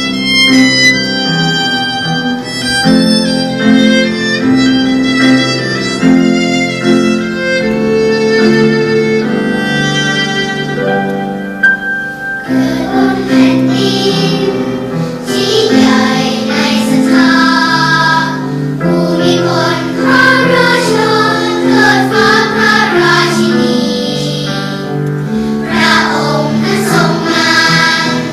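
Violin melody over piano accompaniment. About twelve seconds in, a children's choir starts singing a song in Thai, and it carries on to the end with the accompaniment beneath.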